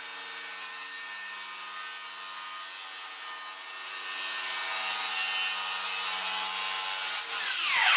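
Cordless circular saw cutting through plywood: a steady motor whine under the hiss of the blade in the wood, which gets louder about halfway through. Near the end the pitch falls as the saw winds down.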